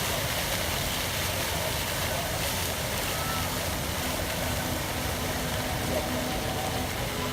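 Water jets of a musical fountain running, a steady even rush of spraying and falling water.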